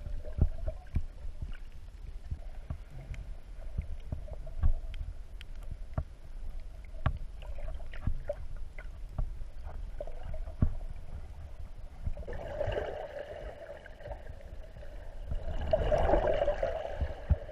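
Underwater sound picked up by a GoPro in its housing while snorkeling: a low rumble of moving water with scattered sharp clicks and crackles, and two louder, muffled swells of rushing noise near the end.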